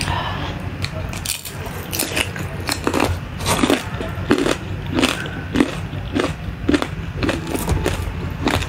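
Close-miked chewing of a bite of red-sauced fried chicken, a run of short, sharp crunches about one or two a second.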